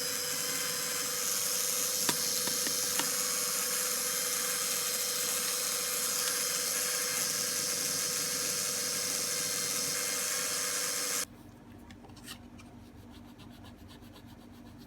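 Bosch electric drill spinning a flexible shaft, its rotary bit rubbing and grinding against a workpiece: a steady hissing whir with one steady tone, which cuts off suddenly about eleven seconds in.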